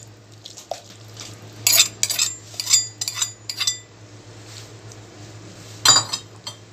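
Steel spoon clinking and scraping against a steel bowl and a steel saucepan as crushed fried onion is knocked into a yogurt curry and stirred in. A quick run of ringing metallic clinks comes in the middle, with one loud clink near the end.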